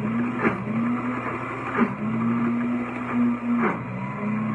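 Deluxe Cooking Blender motor running at speed on its grind setting, churning thick hummus. Its pitch sags briefly three times, each with a short knock, as the tamper pushes the mixture down onto the blades.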